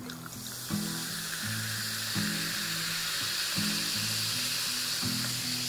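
Tonic water poured over ice into a glass, fizzing with a steady hiss as it foams up. Background music plays underneath.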